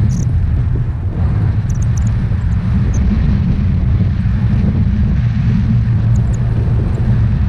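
Steady wind rumble on the microphone of a camera held out from a tandem paraglider in flight: airflow rushing past the mic.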